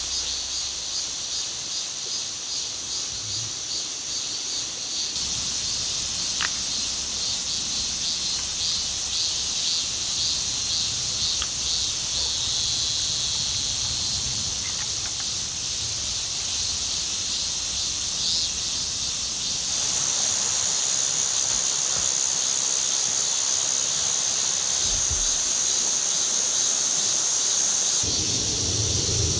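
Insects chirping in rapid, even pulses, with a steady background hiss. From about twenty seconds in, a louder, steady, high insect drone takes over.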